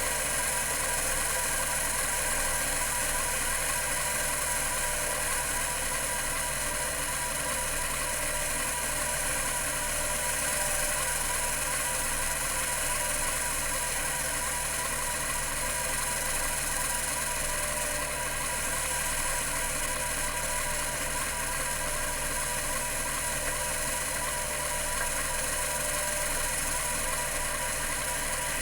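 Computer Memories Inc. CM-5412, a 1982 full-height 5.25-inch 10 MB hard drive with two 3600 RPM platters, running steadily: an even mechanical hum with several steady tones and a high hiss.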